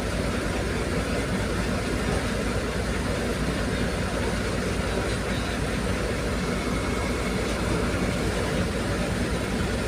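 A ferry's engines running with a steady, low, unbroken sound.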